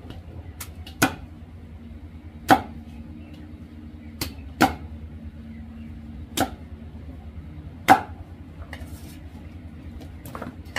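Heavy kitchen knife chopping peeled cassava on a thick wooden chopping block: sharp knocks of the blade through the root into the wood every second or two, some louder than others. A steady low hum runs underneath.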